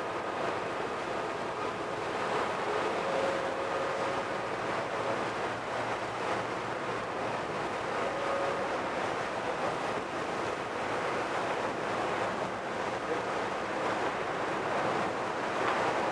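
Strong wind buffeting the microphone over the steady rush of a passenger boat's churning wake and a rough, whitecapped sea.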